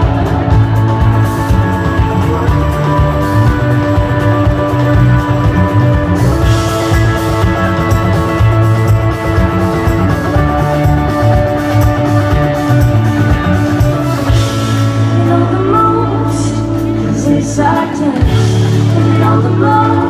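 Live rock band playing loudly in a concert hall, heard from the audience: electric guitars, a drum kit and horns, with voices singing along.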